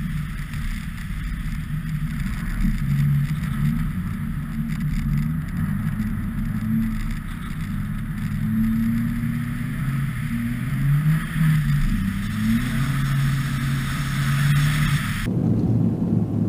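Audi A4 Turbo Quattro's turbocharged engine running hard on a snowy rallycross track, its revs rising and falling repeatedly through acceleration and lifts, heard from an exterior camera with heavy wind noise. About fifteen seconds in the sound switches to the engine as heard inside the cabin.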